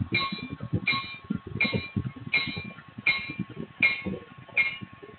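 BLI N scale F3 diesel model locomotive running on its Paragon 3 sound decoder, picked up by a tiny onboard camera microphone. A diesel engine rumble runs under a rhythmic click-clack that repeats about every three-quarters of a second.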